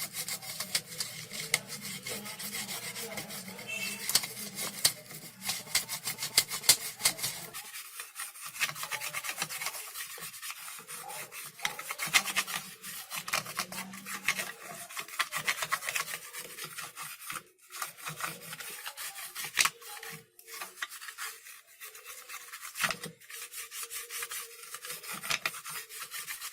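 Fast, repeated scratchy strokes of scrubbing on a burnt LED TV power-supply circuit board, cleaning off soot and residue with thinner. The strokes stop briefly a few times.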